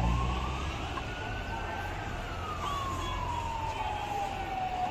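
Emergency siren wailing in a slow cycle: the pitch rises for about two seconds, falls for nearly three, and starts to rise again at the end.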